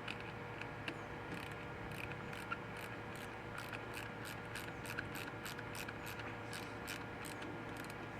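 Hand ratchet clicking in a steady run, about three clicks a second, as fasteners are turned during reassembly of a small two-stroke trimmer engine.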